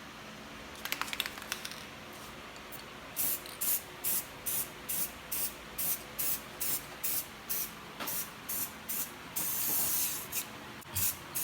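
Aerosol spray paint can sprayed in short bursts, about two a second, with one longer spray near the end. A few light clicks about a second in.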